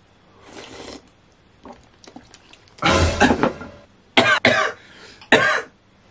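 A faint slurp of soup, then a man coughing hard in three fits, the first and loudest about three seconds in. The coughing comes from the fiery-hot chili sauce of the soup catching in his throat.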